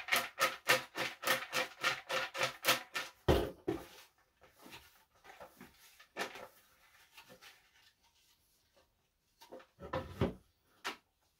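Raffle tickets being shaken in a plastic bucket: rapid rhythmic swishing, about four shakes a second, which stops with a heavy thump about three seconds in. Softer rustling follows as a hand stirs the tickets, then another thump near the end as the bucket comes down on the table.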